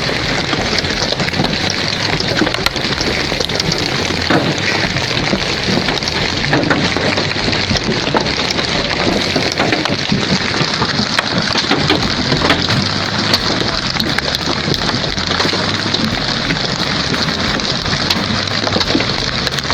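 Hail pelting down hard: a loud, steady, dense patter of countless small impacts.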